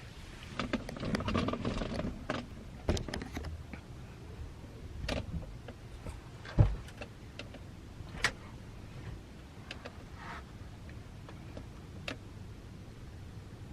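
Rustling and scattered knocks and clicks from someone moving around and handling things, with one louder thump about six and a half seconds in.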